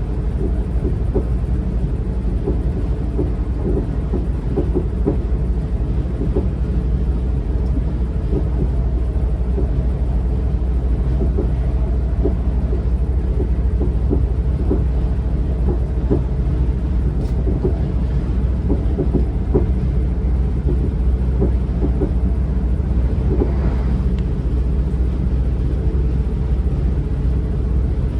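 Siemens Class 444 Desiro electric multiple unit running at speed, heard on board. A steady low rumble from the running gear is overlaid with frequent light knocks from the track.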